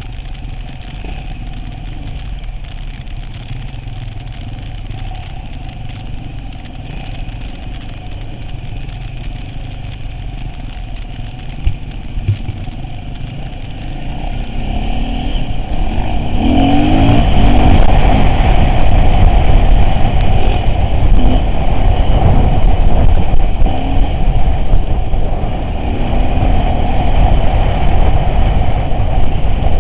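Off-road vehicle's engine running on the move. It gets steadily louder over a few seconds around the middle, then stays loud with scattered sharp clicks and crackles over the drone.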